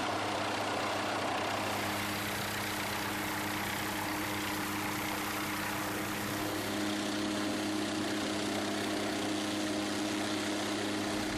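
MQ-8 Fire Scout unmanned helicopter running, a steady turbine-and-rotor hum with a few held low tones over a broad rushing noise.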